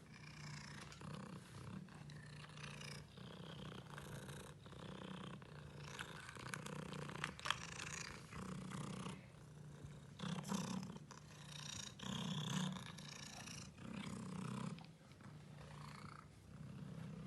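Domestic cat purring steadily, swelling and easing with each breath every couple of seconds. One sharp click about seven and a half seconds in.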